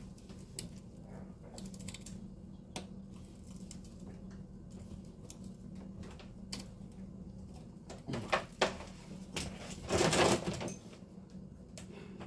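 Scattered clicks and knocks of someone handling things and moving about, over a steady low hum, with a cluster of louder knocks about eight seconds in and a longer scraping, rustling burst about ten seconds in.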